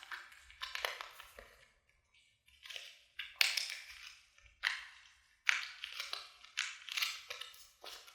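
Close-up handling noises: a run of short crackling, crunching sounds, each starting sharply and fading quickly, about one a second.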